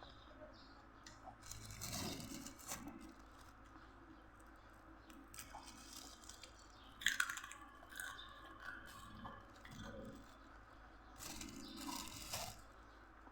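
A person chewing crunchy food close to the microphone, in separate crunching bursts with quieter gaps between them; the sharpest crunch comes about seven seconds in.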